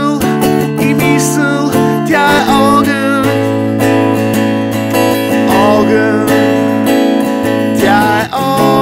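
Acoustic guitar strumming chords in a song, steady and rhythmic, with a wavering melody line above it at times.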